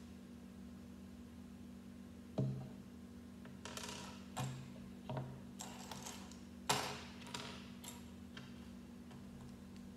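Small plastic Lego pieces clicking and snapping together and knocking on a wooden tabletop: a scattered run of sharp clicks and taps, the loudest about two and a half and about seven seconds in, over a steady low hum.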